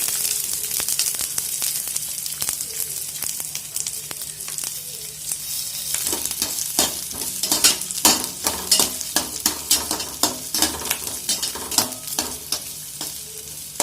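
Large pieces of chopped onion sizzling in hot oil in a kadai, the hiss strongest at the start. From about six seconds in, a spoon stirs them, knocking and scraping against the pan again and again.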